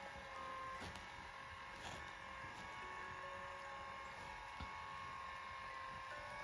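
Lourdes AX-HL168 massage cushion running, its motor and gear drive moving the massage rollers with a faint, steady hum and a few light clicks.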